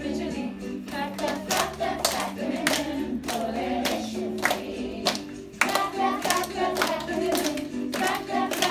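A group of children singing a French song over musical accompaniment, clapping their hands in scattered claps throughout.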